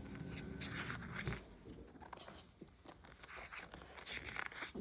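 Faint rustling and small clicks of paper being handled, as the pages of a picture book are turned, with brief swishes about a second in and again near the end.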